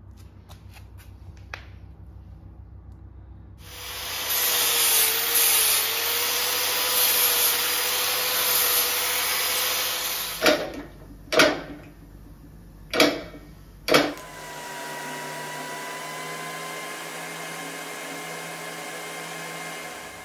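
Angle grinder cutting a steel bar clamped in a bench vice: it starts about four seconds in and runs loud and steady with a whine. Then come four short bursts, and a quieter steady run with a whine to the end.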